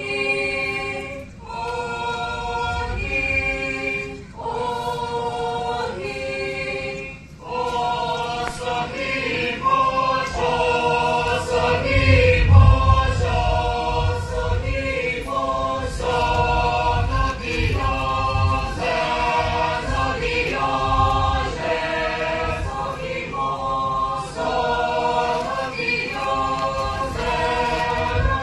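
Mixed group of men and women singing unaccompanied in harmony, a traditional Angami Naga folk song. It comes in short sung phrases, the first few separated by brief pauses.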